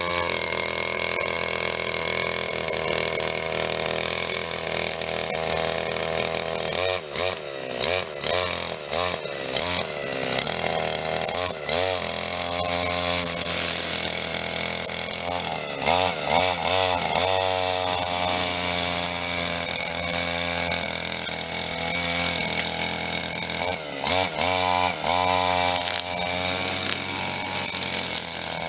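Petrol brush cutter fitted with a metal blade, running and cutting grass. The engine pitch wavers up and down, with several brief dips in the throttle, a few times about 7 to 12 seconds in and again near 24 seconds.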